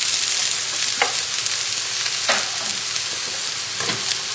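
Stir-fry vegetables sizzling in a smoking-hot frying pan with a little oil, just added: a steady hiss with a few louder crackles.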